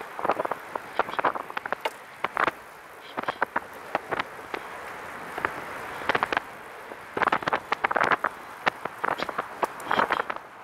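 Riding noise from a Catrike 700 recumbent trike rolling along a paved trail: a steady hiss of tyre and wind noise, broken by irregular clusters of sharp crackling clicks every second or so.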